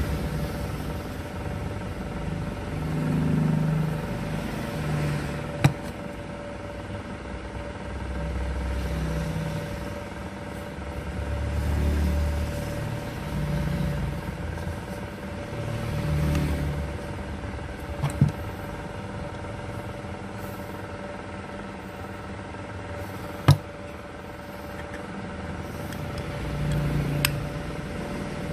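Engine noise of passing vehicles, rising and falling every few seconds over a steady hum, with three sharp clicks, the last one the loudest.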